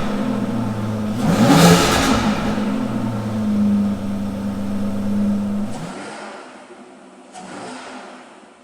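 Car engine running with a quick rev about one and a half seconds in, then settling to a steady idle that cuts off abruptly about six seconds in.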